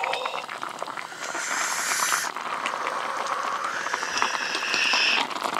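Offal-and-vegetable hotpot broth with ramen noodles bubbling in a pot, a steady hiss full of small popping bubbles.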